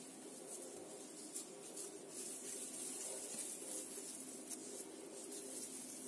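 Faint rustling and crinkling of disposable plastic gloves as hands roll a piece of cookie dough into a ball, over a faint steady hum.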